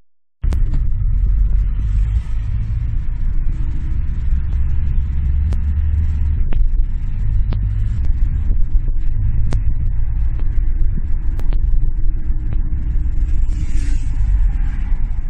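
Steady low rumble of a car's engine and tyres heard from inside the cabin while driving along a town road, with a few faint clicks. The sound drops out for a moment right at the start.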